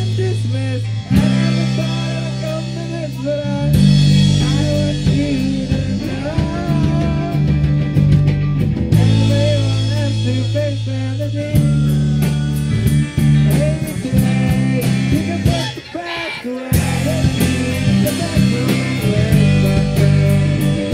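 A live rock band plays, with electric guitars to the fore over bass and drums. About three-quarters of the way through, the band drops out briefly, then comes back in.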